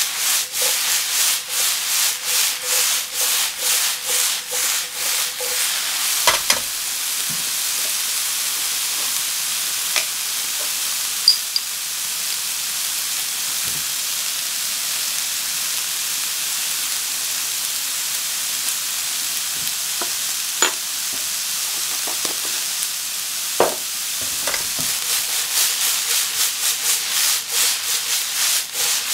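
Cauliflower and aubergine cubes sizzling in a hot oiled wok on a gas burner, the pan tossed in rhythmic swishes, about three a second, at the start and again near the end. In between the sizzle runs on steadily, with a few light taps.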